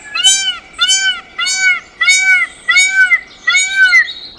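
Peacock calling: a rapid series of seven short, loud calls, each rising and then falling in pitch.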